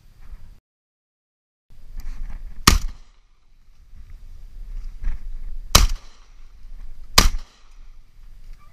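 Three shotgun shots: the first about three seconds in, the second about three seconds later, the third a second and a half after that. A low rumble runs underneath.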